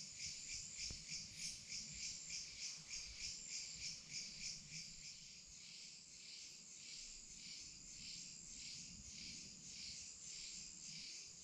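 Night insects chirping in a high-pitched chorus, pulsing at about three chirps a second, then settling into a steadier trill about five seconds in.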